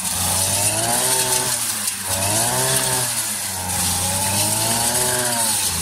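Brush cutter (motorized scythe) engine revving up and down over and over, about four swells, as it chops dried hay into straw.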